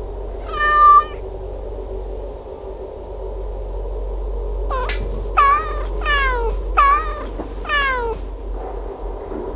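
Cat meowing: one meow about half a second in, then a run of about five quick meows that fall in pitch, starting about five seconds in. A steady low hum runs underneath.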